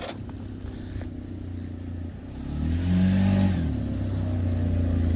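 Vehicle engine running, revving up and back down about two and a half seconds in. A sharp click comes right at the start.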